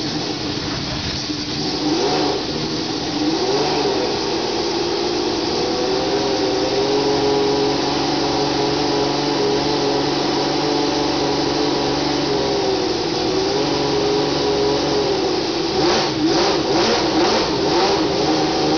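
1993 Ferrari Formula One car's V12 engine running, with quick rises in revs about two and four seconds in, then held at fairly steady revs with small rises and falls. Near the end comes a short stuttering run of sharp crackles.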